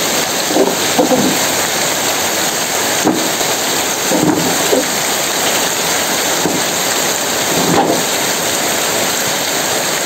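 Heavy rain pouring down steadily, a dense even hiss of rain on ground and leaves.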